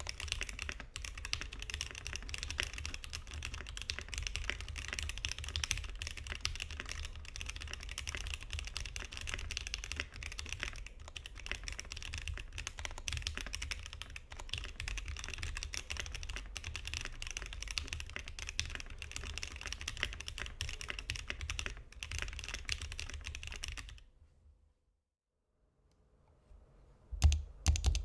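Fast, continuous typing on a Satisfaction 75 custom mechanical keyboard: lubed and filmed Gateron CJ linear switches on an FR4 plate, with GMK keycaps. The typing stops about 24 seconds in, and after a short silence two loud knocks come near the end.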